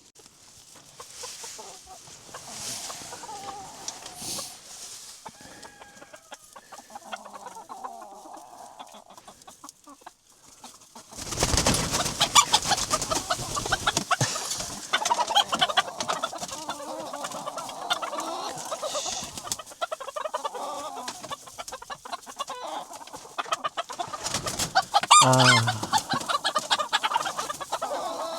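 A flock of chickens clucking and calling. The calls grow louder and busier about eleven seconds in.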